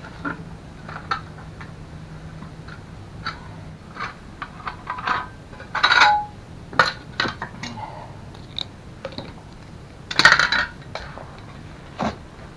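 Scattered metallic clinks and clatters of tools and hardware being handled, with louder clusters about six and ten seconds in. A low hum stops about four seconds in.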